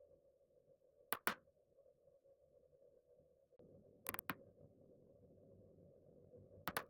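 Neck joints cracking during a self-adjustment: three quick bursts of pops, each two or three cracks close together, about a second in, near the middle and near the end, over a faint steady hum.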